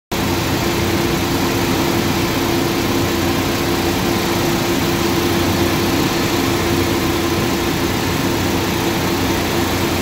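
Bluedog BDG-8L copper wire granulator running steadily: a loud, constant mechanical drone with a steady hum under it.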